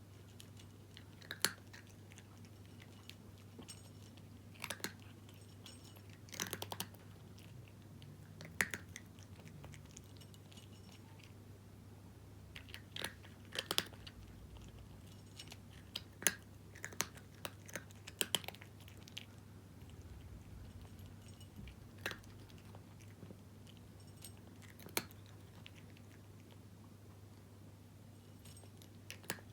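A cat crunching dry kibble: sharp crunches at irregular intervals, often two or three close together, every second or few seconds.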